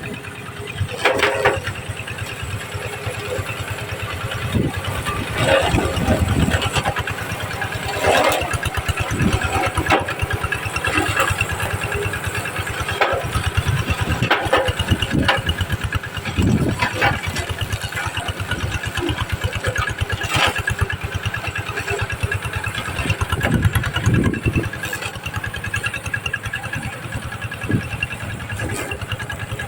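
Engine of a sugarcane stubble-cutting machine running steadily with a rapid low pulse, with short louder knocks every few seconds.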